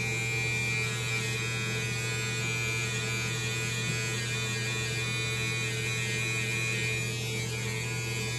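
Electric hair clippers running steadily with a constant hum while cutting hair.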